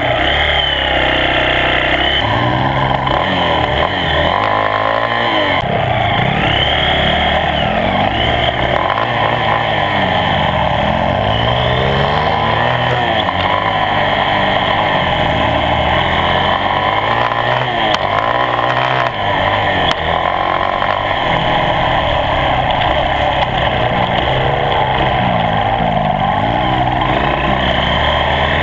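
Dirt bike engines running and revving up and down, their pitch rising and falling again and again as the bikes are ridden and shifted.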